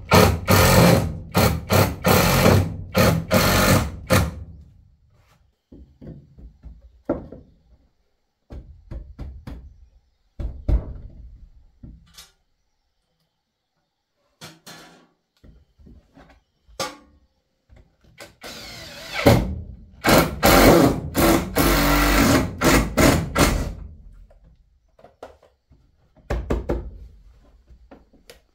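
Cordless drill driving screws through a wooden shelf bracket into plank wall, in two spells of stop-start trigger bursts, one at the start and one from about 19 to 24 seconds in. Quieter knocks and wood-handling thuds come between.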